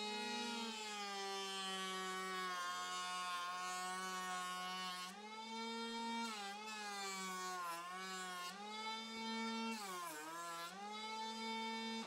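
Homemade jointer's electric cutter motor running with a steady whine. Its pitch sags briefly several times, most deeply about ten seconds in, as a board is fed across the cutter, with a hiss of cutting over it.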